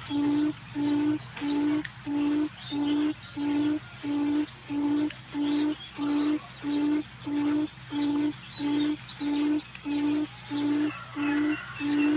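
Forest quail (puyuh hutan) lure call: a low hooting note repeated evenly about twice a second, with faint higher bird chirps in the background.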